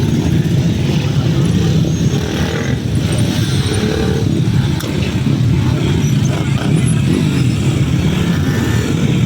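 Motorcycle engines running loud and steady, a dense low exhaust rumble with rapid pulsing.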